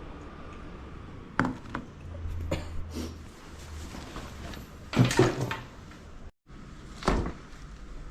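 Kitchen handling noise: a series of separate knocks and clunks, the loudest cluster about five seconds in, over a low background hum.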